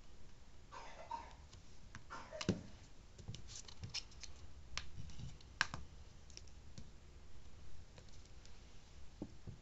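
A plastic scraper scraped twice across a metal nail-art stamping plate, drawing polish over an engraved design, followed by a run of sharp clicks and taps of the tools against the plate.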